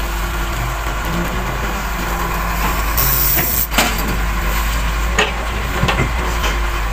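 Heavy construction machinery's diesel engine running steadily. About three seconds in there is a short hiss that ends in a sharp knock, and a few more sharp knocks follow near the end.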